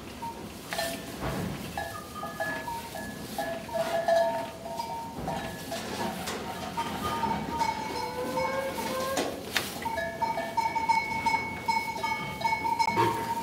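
Background music with long held notes that step from pitch to pitch, with a couple of short knocks.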